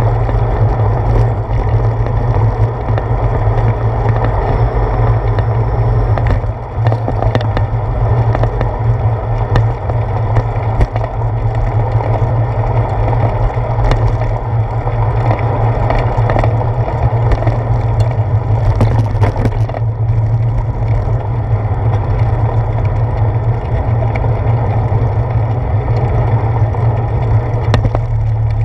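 Steady wind buffeting on a handlebar-mounted action camera's microphone over the rumble and vibration of a bicycle rolling along a paved path, with scattered small knocks from bumps in the surface.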